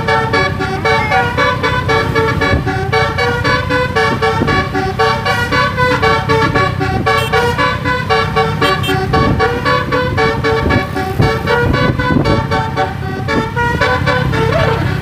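Indonesian basuri-type 'telolet' multi-tone bus horn playing a fast melody, its notes changing several times a second without a break, over a steady low rumble.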